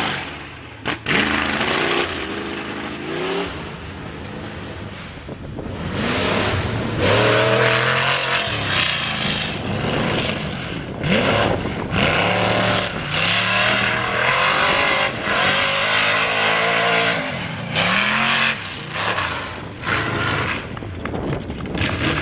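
Off-road race vehicle engines revving hard, their pitch climbing and dropping again and again as the throttle is worked on and off, over a loud rasp of open exhaust. The engine drops away briefly about a second in, then picks up again.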